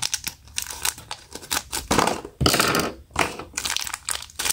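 Scissors snipping through a crinkly plastic wrapper, then the wrapper crackling and crinkling as it is pulled open by hand, thickest about halfway through.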